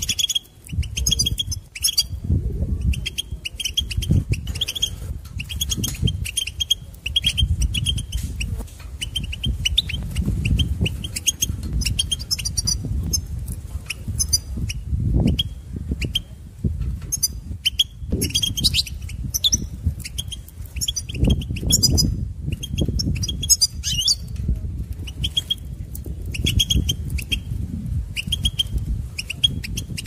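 European goldfinch song: fast, repeated high chirps and twittering phrases with brief pauses, over a low rumble with soft thumps.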